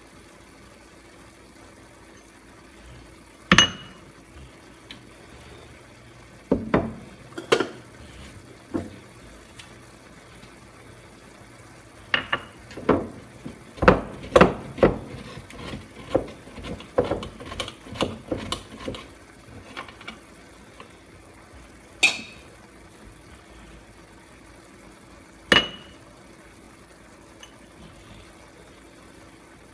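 Kitchen clatter of utensils and dishes: scattered knocks and metallic clinks, a few ringing briefly, with a quick run of them in the middle.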